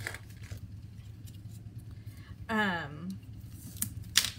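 Plastic wrapping on a pack of envelopes crinkling and rustling as it is handled, with a sharp crackle near the end. A short wordless hum from a woman about two and a half seconds in.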